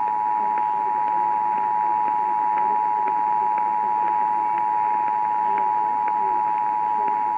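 Emergency Alert System attention signal: a steady two-tone alarm of 853 and 960 Hz held unbroken, over faint radio hiss with scattered clicks.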